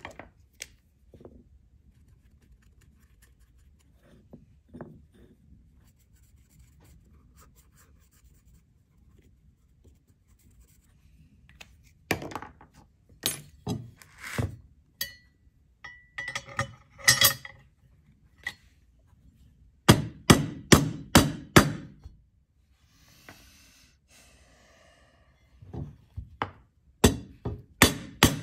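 A mallet strikes a Galil rifle's bolt carrier handle over and over, driving the bolt forward toward battery while a new bolt is force-matched to set headspace. The blows come in runs: scattered strikes, some with a short metallic ring, then a quick run of about six, a brief hiss, and another run near the end.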